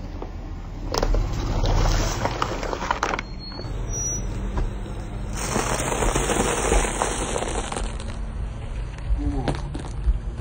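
A car tyre rolls over plastic cups of coloured liquid, crunching the plastic and splashing, about one to three seconds in. Then, from about halfway, blocks of dry instant noodles crackle and crunch under the tyre, with many small snaps. A low engine rumble runs underneath.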